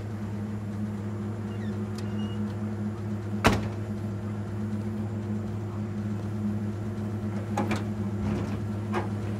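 Pickup truck idling: a steady low hum, with one sharp knock about three and a half seconds in and a few lighter clicks near the end.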